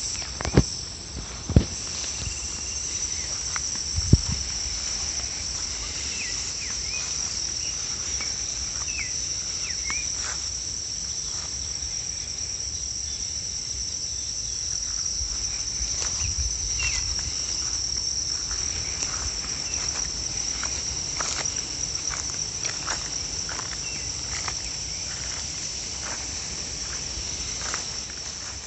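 Steady, high-pitched chorus of insects shrilling in the vegetation, with footsteps swishing and crunching through long grass. A few loud, sharp thumps come in the first four seconds.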